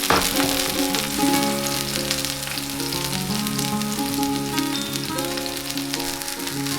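Food sizzling and spitting in a hot iron frying pan with a steady, crackling hiss, over a plucked ukulele tune. A brief knock comes right at the start.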